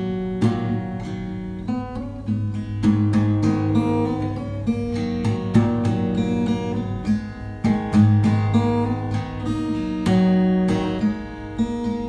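Background music played on guitar, with strummed chords and plucked notes.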